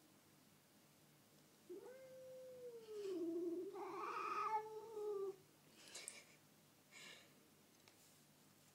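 A domestic cat giving one long, drawn-out yowl of about three and a half seconds, its pitch sagging in the middle and rising again: an angry warning at another cat over food. Two short, noisy scuffs follow near the end.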